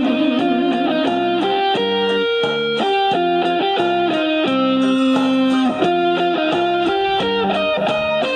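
Instrumental interlude of a Hokkien pop song's backing track: a lead melody of short, stepped notes, guitar-like, over a steady accompaniment, with no singing.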